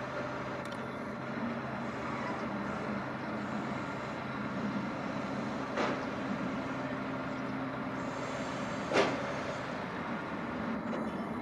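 Truck-mounted loader crane with a scrap grapple running steadily on its engine and hydraulics, with a sharp knock about six seconds in and a louder one about nine seconds in.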